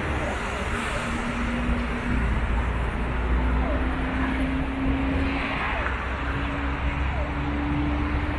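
Steady low rumble of vehicles, with a humming tone that rises slowly in pitch over several seconds.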